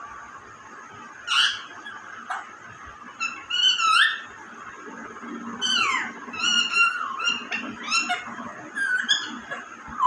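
Parakeet calling and chattering: a string of short, squawky calls, several gliding down in pitch, the first about a second in and then coming close together from about three seconds on.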